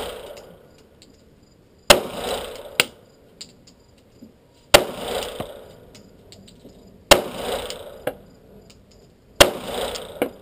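Five gunshots fired at an irregular pace, the first two under a second apart and the rest about two seconds apart, each a sharp crack with a short echo.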